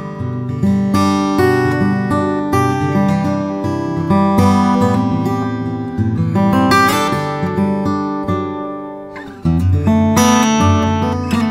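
Background music: acoustic guitar picked and strummed. The chords ring down about nine seconds in, then a fresh strum starts.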